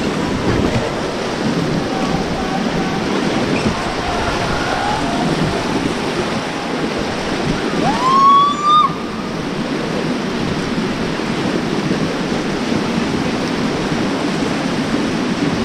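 Steady rush of whitewater rapids around an inflatable raft. About eight seconds in, a short whistle rises in pitch, holds for under a second and stops sharply.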